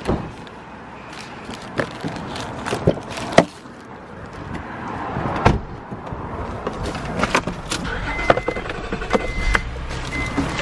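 Knocks and clicks of people getting into a car and handling things inside it: the door, bottles, seats and console. Near the end a short steady high beep sounds three times over a low rumble.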